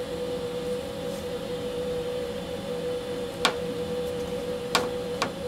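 A steady hum with three light, sharp clicks in the second half, from a shim being fitted under a board on the CNC bed.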